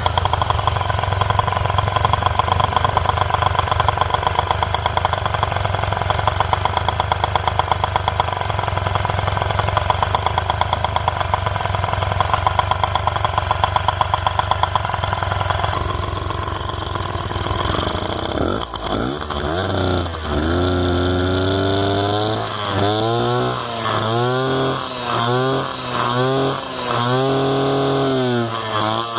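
Honda Dio 50 cc two-stroke scooter engine running with the variator cover off, the belt and variator exposed. It runs steadily for the first half. From a little past the middle it is revved again and again, its pitch rising and falling in short throttle blips.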